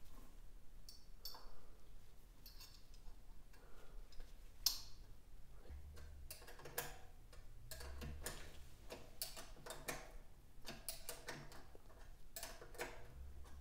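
Faint, irregular metallic clicks and taps of a wrench and hands working on a brake lever clamp fitted to a steel handlebar.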